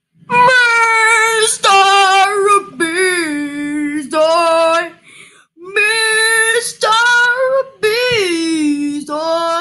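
A high young voice singing a wordless tune in long held notes, two phrases of about four notes each with a short break between them.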